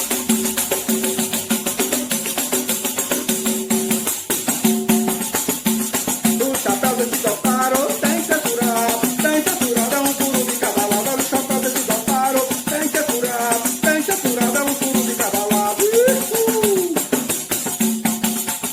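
Pandeiro jingles shaking in a steady, quick rhythm over the steady tones of a berimbau: the instrumental opening of a coco com embolada. A voice comes in singing about six seconds in.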